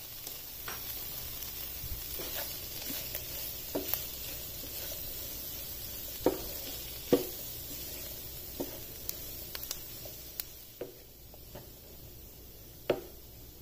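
Wooden spoon stirring minced-meat keema with peas in a non-stick frying pan, with irregular knocks and scrapes of the spoon against the pan. A faint sizzle from the still-hot pan, its flame just turned off, fades toward the end.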